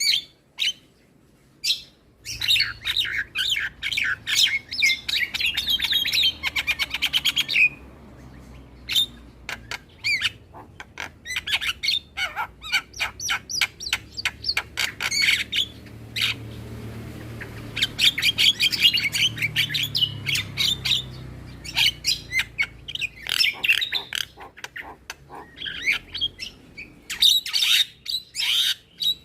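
Javan myna calling: fast runs of harsh chattering and squawking notes in dense bursts, with short pauses between runs.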